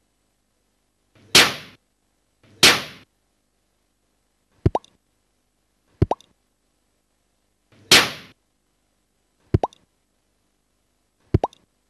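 Bubbles of fermentation gas breaking through the water of a plastic airlock: seven separate sounds with dead silence between, three brief fizzing bursts that die away and four quick plops that rise in pitch.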